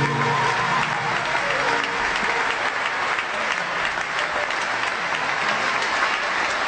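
Audience applauding after a song passage, dense steady clapping, as the last held note of the music dies away in the first second.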